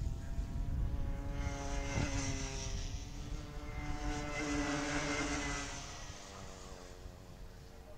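Rotax Micro Max 125 cc two-stroke kart engines running as karts pass through a corner, swelling twice as they go by and fading away about six seconds in.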